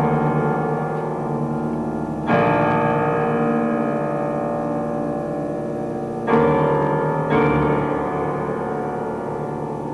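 Slow keyboard music, piano-like, of held chords that ring and fade. New chords are struck about two seconds in, then twice more around six and seven seconds.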